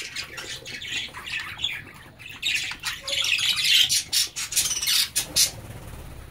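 A colony of budgerigars chattering and squawking, with many rapid, short, high calls overlapping. The chatter is busiest in the middle and thins out near the end.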